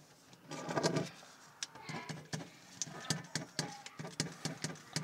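Pen scratching on paper in many quick, short strokes as someone draws, with a brief muffled voice about a second in.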